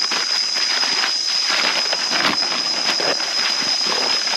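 Footsteps crunching through dry leaf litter, with a steady high-pitched insect drone.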